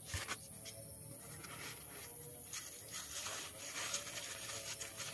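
Faint rustling and crinkling of crumpled paper-towel packing as a hand pushes and pulls it aside inside a cardboard box.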